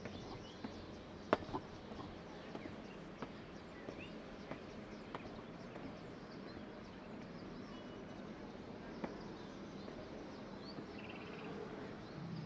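Quiet outdoor ambience: faint, short bird chirps over a steady background noise, with scattered light taps in the first half.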